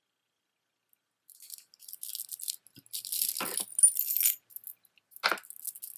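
Beaded jewelry being handled, with beads and chain clinking and rattling in irregular bursts and a couple of louder clacks.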